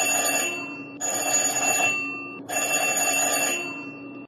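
Electric bell ringing in repeated bursts, each about a second and a half long, starting sharply and fading away, with a new burst about a second in and another about two and a half seconds in. It rings inside a bell jar that is still full of air.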